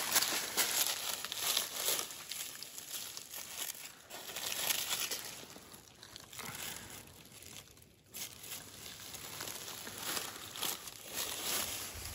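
Crinkling of a thin plastic grocery bag mixed with rustling of dry leaf litter as the picker moves and crouches, in uneven bursts with a quieter spell about six to eight seconds in.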